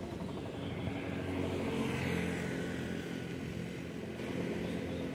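A motor vehicle passing on the road, its engine growing louder to about two seconds in and then fading, over a steady rumble of traffic.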